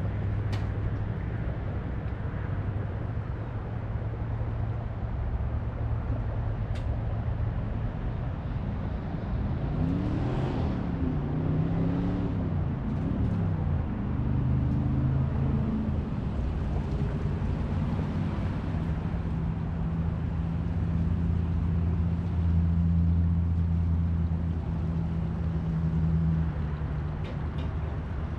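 Tow vehicle's engine running as it pulls an empty boat trailer up a launch ramp. The pitch rises and falls about ten seconds in, then settles into a stronger steady hum that drops off shortly before the end.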